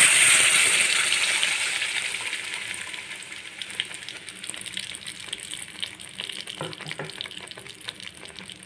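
Wet ground onion-tomato-cashew paste hitting hot melted butter in a kadai, sizzling loudly the moment it lands. The hiss then dies away steadily into light crackling over the following seconds.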